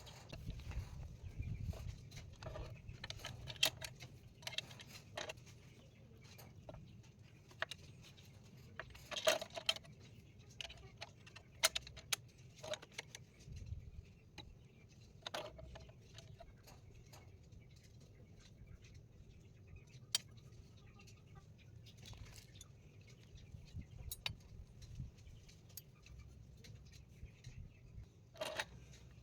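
Scattered light metallic clicks and clinks, irregular and a few seconds apart, as metal pieces and hand tools are handled, over a faint low rumble.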